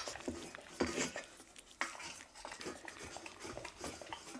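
Kitten lapping the last of the goat milk from a raised ceramic bowl: quick, irregular licking clicks with a few louder clicks, the loudest about a second in.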